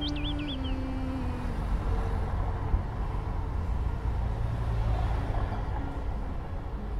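Steady low rumbling background noise, with a soft held music note that ends about a second and a half in.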